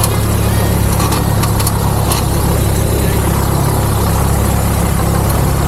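Cessna 172's piston engine and propeller idling steadily shortly after start-up, heard from inside the cockpit.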